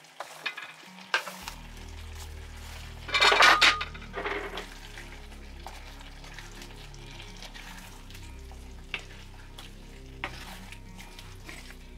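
A pan of chicken curry with carrot sticks simmering and sizzling while a wooden spoon stirs it. There is a loud rustling clatter about three seconds in as the carrots go into the pan, and a few light taps of the spoon on the pan.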